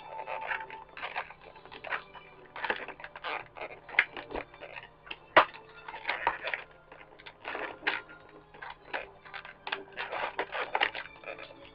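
Plastic toy packaging being handled and pulled apart, with irregular crinkling and clicking and a sharp snap about five and a half seconds in.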